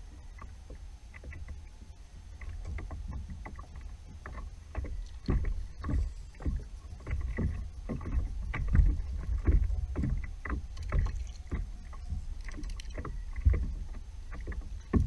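Water slapping and knocking against the hull of a Hobie Pro Angler fishing kayak in irregular, uneven strokes, over a steady low rumble of wind on the microphone.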